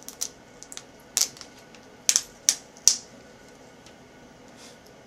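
Short sharp crackles and clicks, four louder ones between about one and three seconds in, as the adhesive tape over a laptop screen's cable plug is pried and peeled up.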